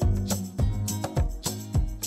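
Background music with a steady beat, bass and melody.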